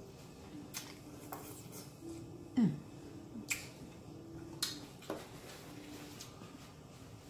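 Close-up mouth sounds of eating corn on the cob dipped in sauce: chewing with several sharp, wet smacks and clicks spread out over a faint steady hum. The loudest smack comes about two and a half seconds in, with a short low sound that falls in pitch.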